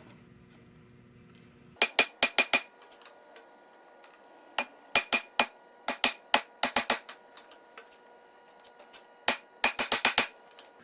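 Hammer striking the capped end of a PVC-pipe crown race setting tool, driving a bicycle fork's crown race down onto the steerer tube. The blows come in four quick bursts of about four to seven sharp strikes each, struck pretty hard.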